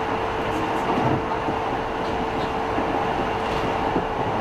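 Passenger train running, heard from inside the carriage: a steady rumble of rail noise with a constant hum.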